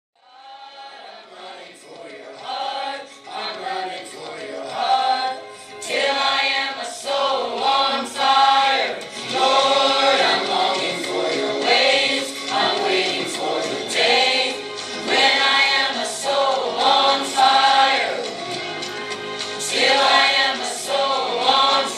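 Church choir singing a song, faint at first and growing louder within the first couple of seconds.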